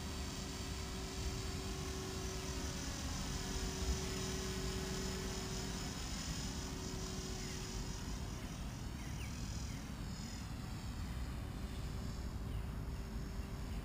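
Blade 300X electric RC helicopter flying at a distance: a steady whine from its brushless motor and rotors that fades for a few seconds partway through and comes back, over a low rush of wind on the microphone.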